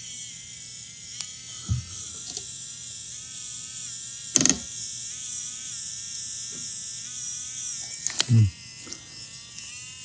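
Small feed motor of a PIKA 3D Pro printing pen running steadily as it pushes PLA filament through the heated nozzle, a faint whir that wavers slightly in pitch. A few short knocks from handling the pen and part, the loudest about four and eight seconds in.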